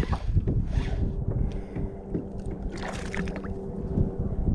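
Water sloshing and gurgling around a kayak, over a heavy low rumble of wind and handling on the microphone. A faint steady hum runs under it from about a second in, and there is a brief splashy burst near the middle.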